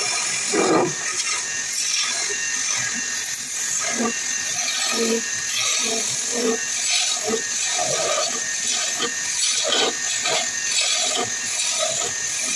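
Small wood lathe running while a hand-held flat steel tool scrapes a spinning wooden tool handle to shape, a steady scraping hiss broken by uneven lower rasps as the edge bites the wood.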